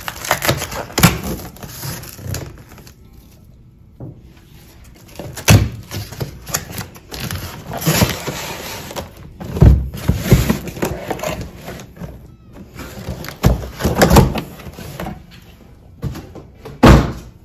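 Cardboard shipping carton being torn open and handled: flaps ripped and pulled apart, with rustling and scraping. Several dull thumps as the heavy boxed cast iron Dutch oven inside is shifted and set down, the last one the loudest.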